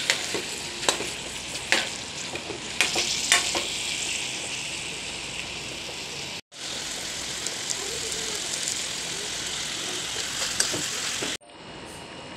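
Chicken pieces sizzling in a hot metal pan as a metal ladle stirs them, with sharp scraping clinks of the ladle against the pan. Near the end the sizzle gives way to a quieter, steady simmer of broth.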